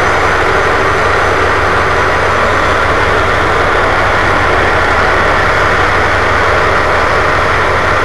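Tugboat engine running steadily at low power, heard from on board the tug, a deep even drone without changes.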